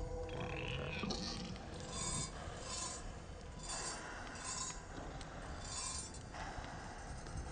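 Small metal bells jingling in a slow, regular rhythm, about six jingles a little under a second apart, over a low rumble.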